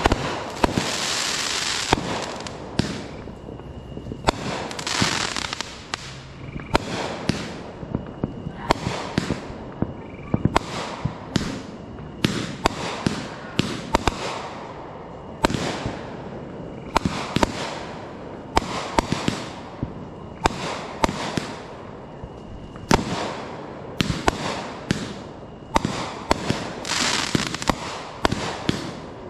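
Aerial fireworks bursting overhead in a fast, uneven string of sharp bangs, about one or two a second, with stretches of crackling, hissing sparkle between them.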